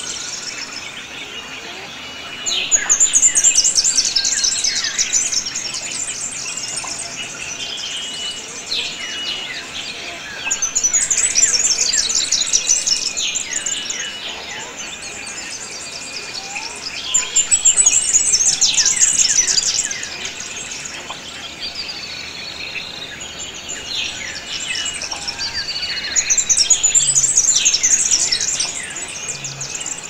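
A chorus of wild birds: many short chirps and calls, overlaid with a loud, high, rapid trilling song that comes in bursts of two to three seconds about every eight seconds.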